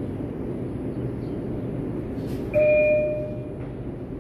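Subway car door chime sounding once, a steady electronic tone of about a second that starts a little past halfway and fades out, over the low hum of the train standing in the station with its doors open.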